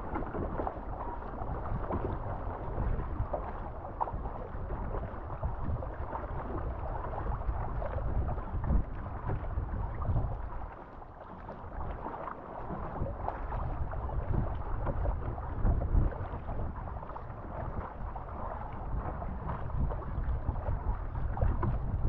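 Water splashing and rushing against a surfski hull and paddle blades as it is paddled through sea chop, with wind gusting on the microphone.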